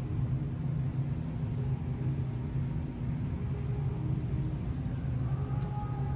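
Steady low hum of a large indoor hall's background noise, with a couple of faint steady tones coming in near the end.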